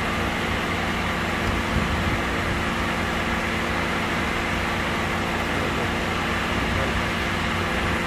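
Electric radiator cooling fan of a 2008 Lexus GS running with a steady hum, switched on with the ignition while the engine itself will not crank.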